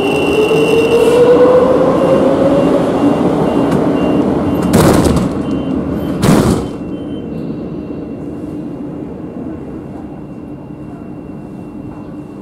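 Madrid Metro series 8400 electric train at the platform: an electric whine gliding upward, with a high warning beep repeating over it. About five seconds in come two loud rushes of noise a second and a half apart, and then a quieter steady hum inside the car.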